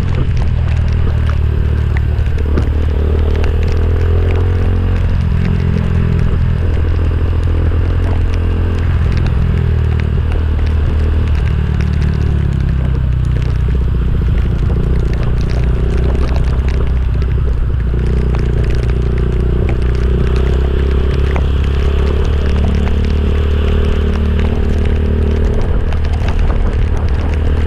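Motorcycle engine running steadily under way, its pitch drifting a little with the throttle, over rough wind noise.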